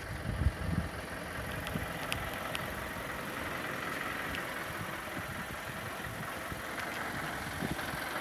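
Isuzu Forward N55's 3.0-litre diesel engine idling steadily. A few low thumps about half a second in.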